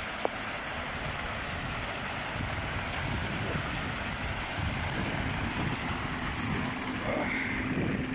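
A small street fountain's water jets splashing steadily into its basin, heard close up as an even rushing, spattering noise.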